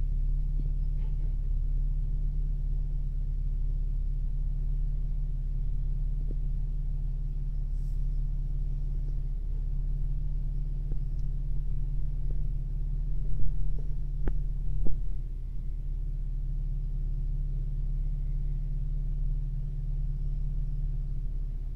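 Chevrolet Cruze engine idling, heard inside the cabin as a steady low drone. A few light clicks or knocks a little past halfway.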